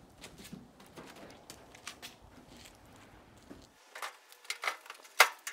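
Footsteps and faint rustling as a pickup tailgate is carried. Then, about four seconds in, a run of sharp metal clicks and knocks as the painted steel tailgate is fitted onto its hinges, with one loud clunk near the end.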